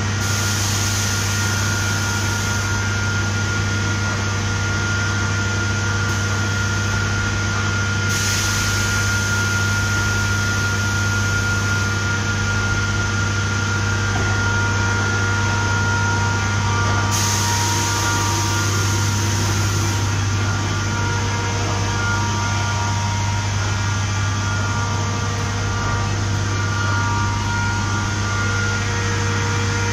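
Big-bag filling machine running while it fills a bulk bag: a steady low hum with a few steady whining tones above it. Three bursts of hiss, each two to four seconds long, come over it about at the start, about eight seconds in and about seventeen seconds in.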